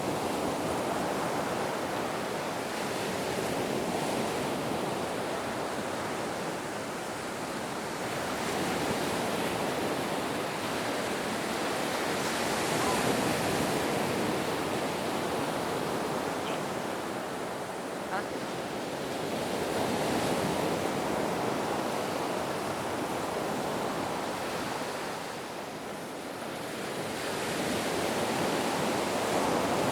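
Ocean waves washing onto a beach: a steady surf hiss that swells and ebbs slowly as each wave comes in and draws back.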